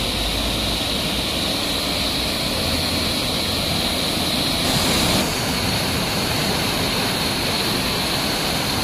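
Loud, steady rushing of water pouring over a curved stone weir and crashing onto the rocks below, briefly louder about halfway through.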